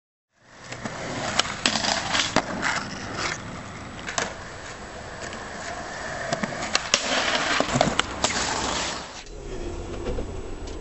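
Skateboard wheels rolling over rough pavement, with repeated sharp clacks and knocks from the board. About nine seconds in, this gives way to the steady low rumble of a coach's engine heard from inside the bus.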